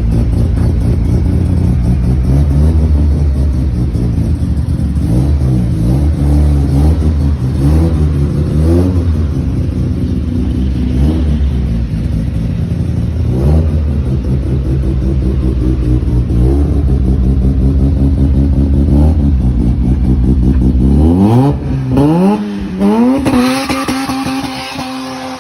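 Mazda RX-7 rotary engine idling between repeated short throttle blips, each rising and falling in pitch. Near the end it revs in one long climb that cuts off suddenly.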